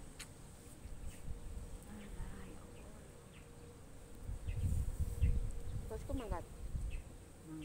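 Flying insect buzzing steadily on one note, with low rumbling about halfway through and a brief voice near the end.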